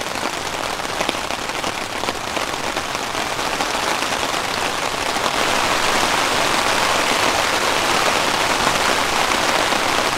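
Steady rain falling, growing louder and denser about halfway through, where it is heard from inside a tent, pattering on the fabric.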